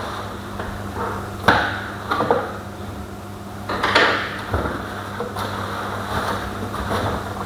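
A few sharp knocks and lighter clattering, as of objects being handled and set down, over a steady low hum.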